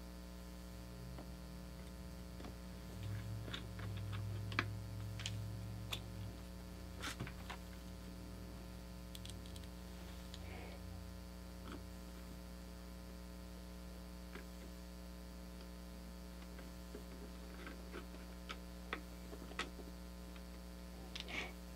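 Steady electrical mains hum with scattered faint clicks and taps of a screwdriver and small screws as the screws are driven into RAM water blocks. A faint low drone is heard for a few seconds about three seconds in.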